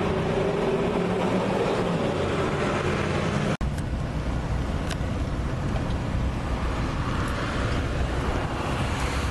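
Steady background rumble and hiss, with a few faint clicks and a sudden brief drop-out about three and a half seconds in.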